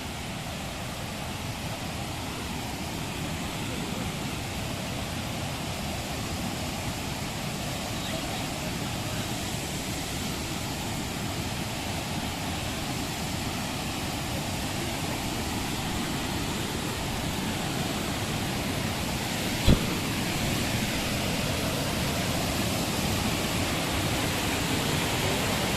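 Steady rushing of a waterfall, slowly growing louder, with a single sharp knock about twenty seconds in.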